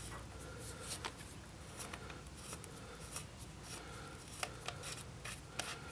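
Faint scraping and light clicks of the Azodin Blitz 2011 paintball marker's regulator end cap being unscrewed by hand, metal threads rubbing, with the clicks coming more often near the end.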